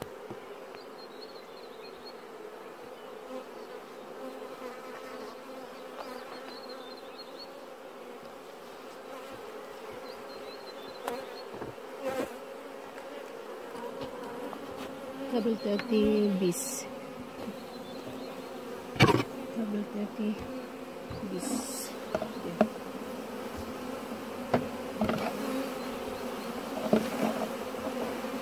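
Honeybees buzzing steadily around an open nuc hive, with a louder buzz that wavers in pitch about halfway through. A few sharp knocks come from the wooden hive frames being handled, the loudest about two-thirds of the way in.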